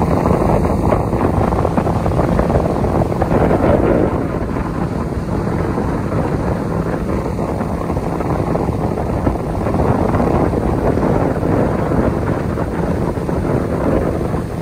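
Wind buffeting the microphone on a moving boat, a steady rumbling noise with the boat's motor and water running underneath.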